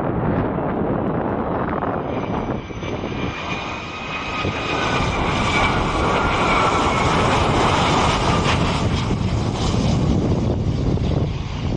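United Airlines Boeing 757 jet engines on final approach with the gear down, passing low: a steady rumble with a high whine. The whine swells to its loudest about halfway through, sinks slightly in pitch, and fades near the end.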